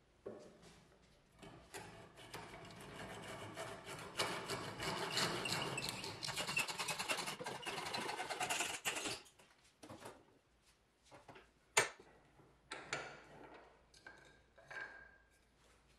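Hand saw cutting through an old wooden axe handle, steady back-and-forth strokes for about seven seconds, then stopping. A few knocks and one sharp, loud click follow as the cut-off piece is worked loose.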